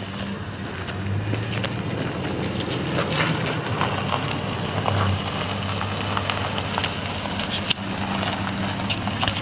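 Chevrolet Silverado 2500HD's 6.0-litre gasoline V8 idling steadily, with a few light ticks and one sharp click near the end.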